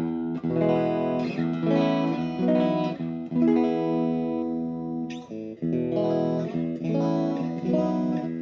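1984 Tokai Silver Star TSS-38, a Strat-style solid-body electric guitar, playing clean, ringing chords that change every second or so, with a brief break about five seconds in.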